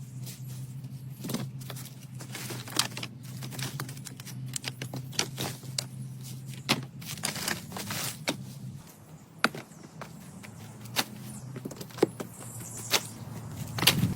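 Irregular sharp clicks and cracks, like hand work with sticks or other material, over a low steady hum that stops about nine seconds in.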